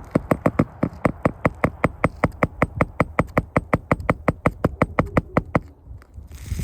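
Hammer striking in a rapid, even run of about six blows a second, stopping abruptly after about five and a half seconds.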